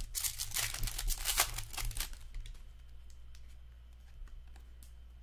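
Hockey card pack wrapper crinkling as it is torn open, for about two seconds, followed by a few faint clicks of the cards being handled.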